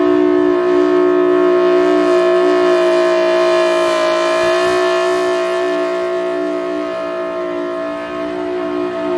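Federal Signal Thunderbolt 1003 outdoor warning siren sounding a steady tone at full pitch: a loud chord of several held notes that fades a little late on as the rotating horn turns away, then swells back. The siren is in poor, 'quite sick' condition but still working.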